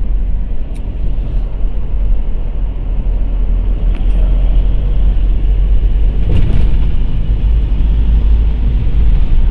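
Car cabin noise while driving: a steady low road-and-engine rumble. It grows a little louder about five seconds in as the car enters an underpass, with a brief swell about a second later.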